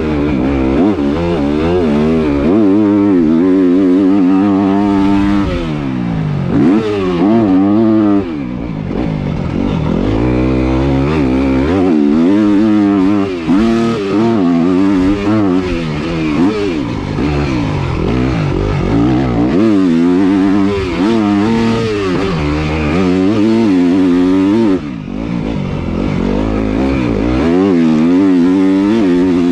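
Full-size Yamaha motocross bike's engine revving hard on a dirt track. Its pitch repeatedly climbs through the gears and drops back as the rider shifts and rolls off, with a few sharper dips in loudness.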